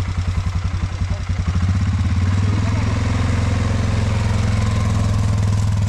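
ATV (quad bike) engine running with a fast, even putter, then opening up and getting louder about a second and a half in as the quad pulls away, running on steadily.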